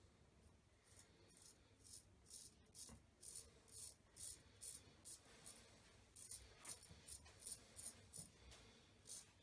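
Custom 7/8 straight razor with an N690 steel blade shaving neck stubble against the grain, short faint scraping strokes about two to three a second, starting about a second in. The blade cutting cleanly through the whiskers, a sound shavers call the razor singing.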